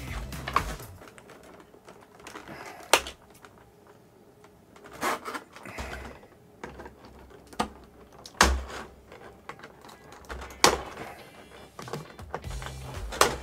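Scissors snipping through plastic toy packaging, with the plastic tray being handled: a string of sharp, separate snaps every second or two, with crinkling and rustling between them.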